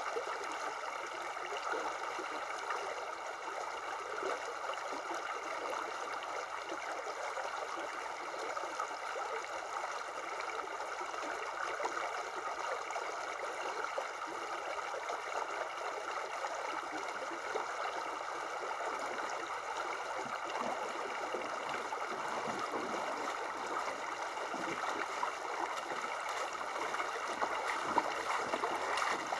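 Shallow, stony river running steadily, a constant rushing and gurgling of water over rocks. Near the end, a few louder splashes as someone wades through the shallows in rubber waders.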